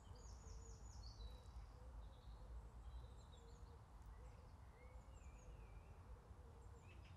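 Faint birdsong: small birds chirping and twittering, with a quick run of high repeated notes near the start, over a low background rumble.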